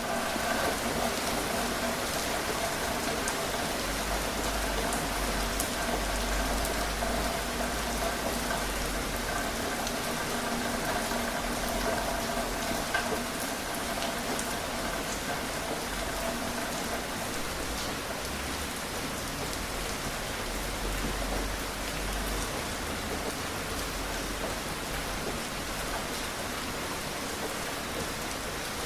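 Steady rain falling, with scattered individual drops ticking through the even hiss. A faint steady hum sits under it and fades out about seventeen seconds in.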